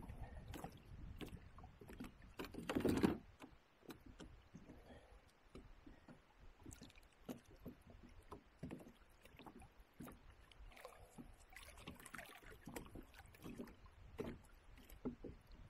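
Faint water and kayak handling sounds: small splashes and light knocks and clicks, scattered through, with a louder rush of noise about three seconds in.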